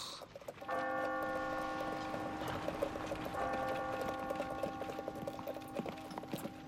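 Clock ticking with a chime ringing over it, a chord of held tones that begins about a second in and lasts several seconds. The clock is running a quarter of an hour slow.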